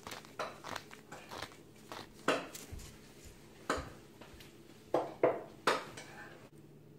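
Irregular sharp clicks and crunches as black pepper is added to a stainless steel mixing bowl of marinade.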